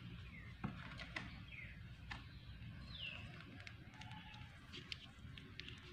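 Faint, quiet background: a few light clicks and taps from handling a plastic sachet over a glass blender jar, with a few short, high bird chirps that fall in pitch.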